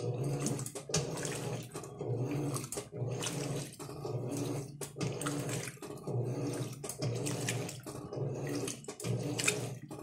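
Electrolux LM08 8 kg top-loading washing machine agitating a load: the motor hums with each back-and-forth stroke of the agitator, pausing briefly at each reversal, while water and clothes slosh in the tub.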